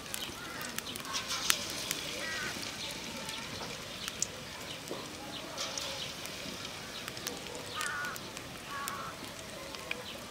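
Hot oil sizzling and crackling in an iron karahi as batter-dipped green chilli fritters deep-fry, with a few short calls from farmyard fowl in the background.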